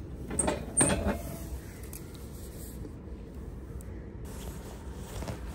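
A plastic drink bottle being pulled out of a vending machine's dispensing slot: the clear plastic flap and the bottle knock twice, close together, with a lighter knock just after, then only a steady low background noise.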